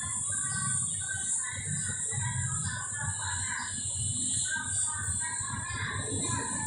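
Birds calling in short, repeated notes over a steady high-pitched insect drone.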